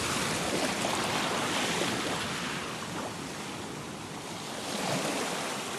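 Ocean surf: waves washing onto a beach in a steady rush that swells and eases, growing again near the end.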